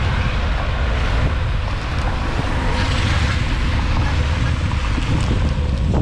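Wind rumbling on the microphone of a handlebar-mounted camera on a moving bicycle, over a steady hiss of tyres on a wet road. The hiss swells briefly about three seconds in.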